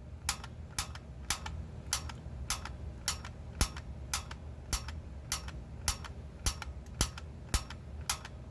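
Igniter (light) button on a Honeywell water heater gas control valve pressed over and over, giving a steady run of sharp clicks about twice a second, sparking to light the pilot. A faint low hum sits underneath.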